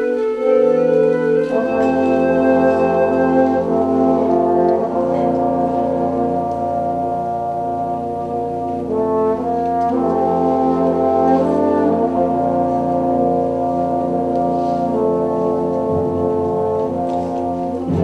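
Symphonic concert band playing long held chords with the brass to the fore. A deep bass part enters about a second and a half in and holds under the harmony.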